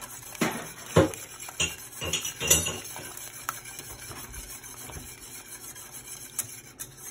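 Wire whisk stirring thick, thickening polenta in a metal saucepan, its wires scraping and clinking against the pan. The sharpest clinks come in the first three seconds, then the strokes go softer.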